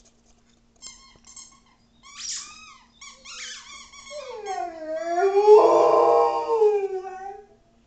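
Rhodesian Ridgeback howling. A few short high-pitched calls lead into one long howl about four seconds in, the loudest part, whose pitch dips and then rises before it fades near the end.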